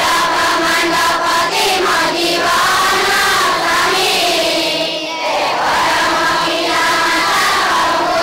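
A large group of children singing a devotional prayer together in unison. The voices hold long notes whose pitch bends slowly, with a brief break about five seconds in.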